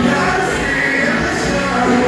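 Bahian pagodão dance music with a sung vocal over the band.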